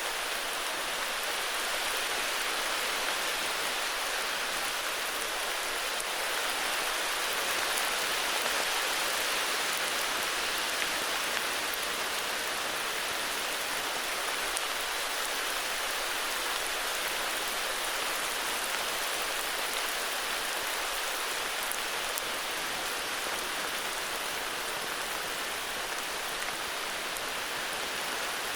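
Steady heavy rain falling, an even hiss with a few faint drop ticks.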